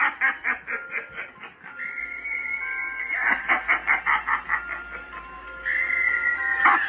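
Animatronic popcorn clown prop playing its recorded soundtrack: a rapid cackling laugh of about six pulses a second, twice led into by a held high note, with music.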